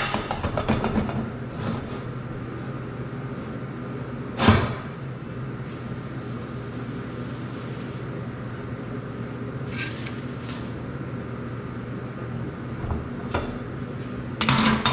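Steady low machine hum, with one sharp knock about four and a half seconds in, a few light clicks, and a clatter near the end as the steel pipe sections are handled and lined up.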